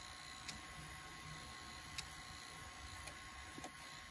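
Faint steady running of a 1998 Broksonic TV/VCR combo's tape-play mechanism, playing a tape near its end, with a soft click about half a second in and another about two seconds in.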